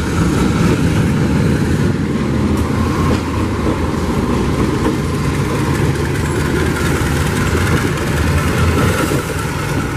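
Diesel engine of a CC201 diesel-electric locomotive running steadily with a low, even hum.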